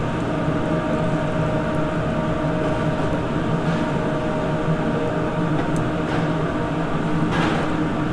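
Steady mechanical drone with a constant low hum, from a restaurant kitchen's fans and lit gas range burners. A brief rustle about seven seconds in.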